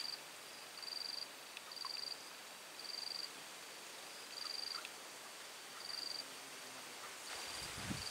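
An insect chirping in short, high-pitched trills repeated roughly once a second, over a faint background hiss. A low rustle comes in near the end.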